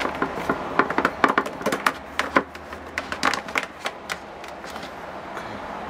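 Clicks and knocks of plastic being handled as a hose is pushed onto a plastic tap on a white plastic brewing bucket, many over the first few seconds, then fewer.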